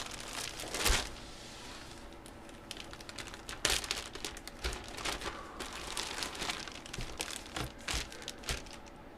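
Baseball-card packaging and cards being handled: crinkling and rustling with scattered light clicks and taps, and a soft thump about a second in.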